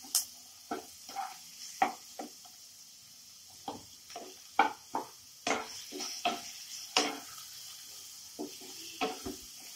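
Wooden spatula scraping and knocking irregularly against a nonstick kadai as sliced onions and capsicum are stirred, over a faint steady sizzle of the vegetables frying in a little oil.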